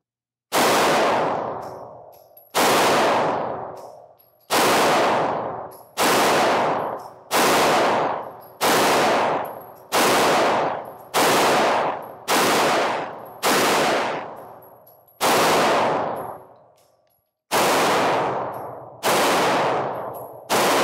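Intratec TEC-DC9 9mm pistol firing slow single shots, about one every second or so, each followed by a long echo off the concrete walls of an indoor range. There is a pause of about two seconds about three-quarters of the way through.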